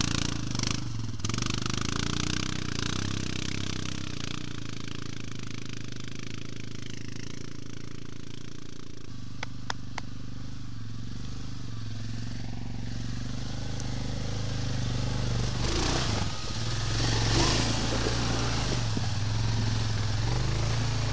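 4x4 ATV engine running at low revs, a steady low drone that grows louder in the second half. There are two sharp clicks near the middle.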